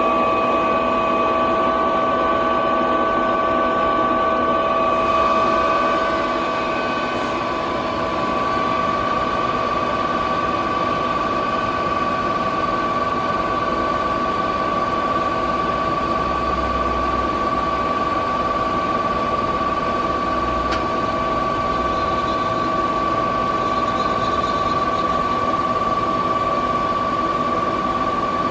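Star SB-20R Swiss-type CNC automatic lathe running, a steady mechanical whine with several held tones over a constant hum and hiss.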